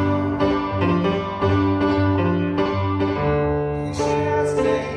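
Band music led by piano: repeated, evenly spaced chords over a held bass line that moves to a new note about three seconds in.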